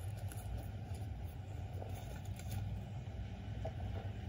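An engine idling steadily: a low, even drone.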